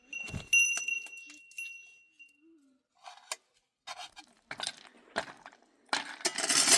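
Hard objects clinking, the first strike ringing on for about two seconds, then scattered knocks and a loud rattling crash near the end.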